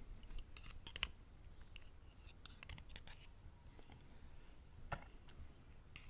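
Faint, scattered metallic clicks and scrapes of steel tweezers probing inside an Abus Bravus 4000 lock cylinder, fishing for a tiny side pin during disassembly.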